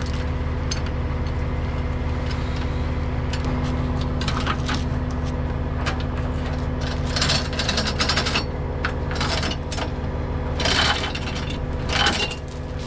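Metal tow chains clinking and rattling in short bursts, several times, as they are handled and hooked, over the steady low hum of an idling truck engine.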